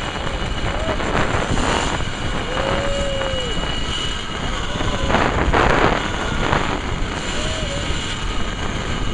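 Wind buffeting an outdoor microphone: a heavy, steady rushing noise that swells a couple of times, with a few faint short tones that rise and fall over it.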